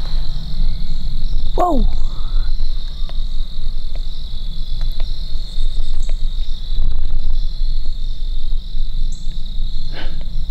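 Steady high-pitched insect chorus over a low rumble in the woods. A short descending call sounds about a second and a half in, a few faint clicks follow, and there is a sharper knock near the end.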